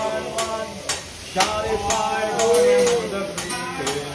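Metal spatulas clicking and tapping on a teppanyaki griddle while food sizzles, over a voice singing drawn-out notes.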